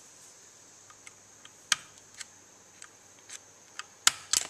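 A pick clicking and tapping against the 4R70W's aluminium valve body as the 2-3 shift valve is pushed out of its bore: a few scattered sharp clicks, the loudest cluster near the end.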